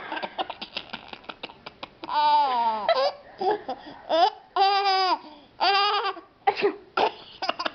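Baby laughing in a giggle fit: several high-pitched bursts of laughter, each under a second, coming roughly every second from about two seconds in, with quick short catches of breath between them.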